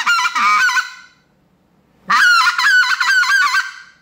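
RedBone 2021 convertible acrylic duck call in its double-reed setup, blown in two runs of quick, choppy notes: the first run trails off about a second in, and a second run starts about two seconds in and lasts a second and a half.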